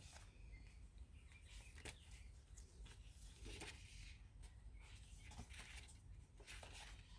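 Soft rustles of journal pages being handled and turned, a handful of brief scattered brushes, over a faint low hum.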